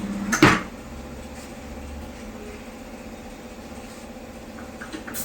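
A single sharp knock about half a second in, followed by a steady low hum of tyre-shop machinery.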